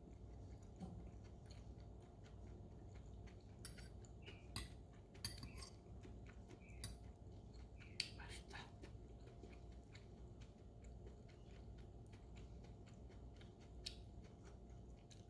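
Faint scattered clicks and light clatters, like small objects or tableware being handled, over a low steady hum in a quiet room.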